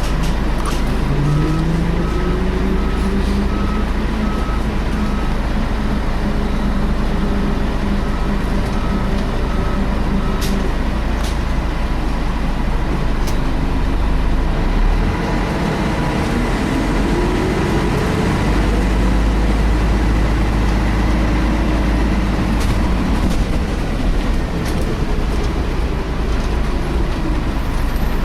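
Scania L113 bus engine running under way, heard from inside the bus, with its pitch rising twice as it pulls up through the gears. Over it is the steady high whine of the engine cooling fan, a hoover-like sound. A row of short even beeps sounds for the first ten seconds or so.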